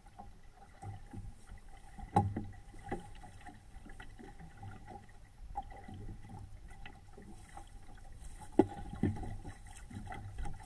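Water slapping and gurgling against the hull of a small home-built SCAMP sailboat under way, with irregular knocks. The sharpest knocks come about two seconds in and near nine seconds.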